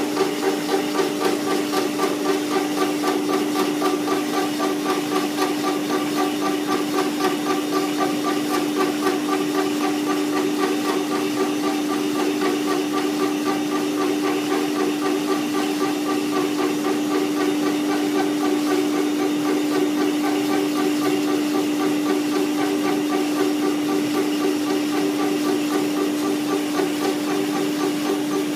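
5-axis CNC brush tufting machine running: a steady motor hum under a rapid, regular mechanical knocking from the tufting head as it drives tufts into the brush block.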